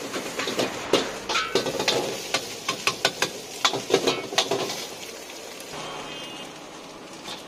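Steel ladle clanking and scraping against a large wok as fried rice is stirred and tossed over a gas flame, in quick irregular strikes. The clanking stops about five seconds in.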